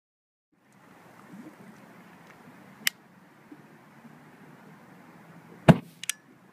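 A small heap of TATP (triacetone triperoxide) deflagrating: a single sharp pop as it flashes off when the lighter flame reaches it, followed at once by two smaller cracks. Before it there is a steady faint hiss and one click.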